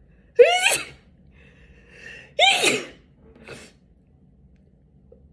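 A person sneezing twice in rapid series, about two seconds apart, each a short, loud burst with a pitched cry at its start.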